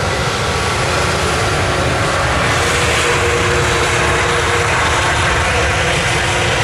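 Jet airliner's engines, a loud, steady rush with a few faint whining tones in it.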